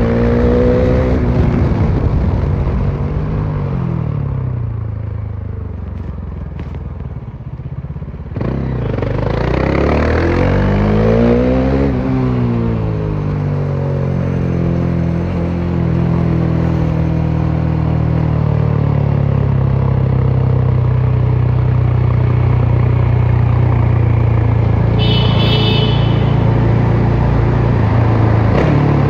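Bajaj Dominar 400's single-cylinder engine through an exhaust with the muffler removed, heard from onboard: the revs fall off and it runs quieter on a closed throttle, then the throttle snaps open about eight seconds in and the revs climb, drop at a shift, and settle into a steady cruise. A brief high-pitched tone sounds near the end.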